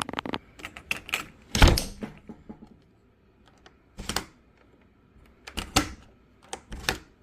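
Metal clicks and knocks from a newly fitted door deadbolt and its latch being worked. There is one heavy thunk about a second and a half in, then three short bursts of clicking spread through the rest.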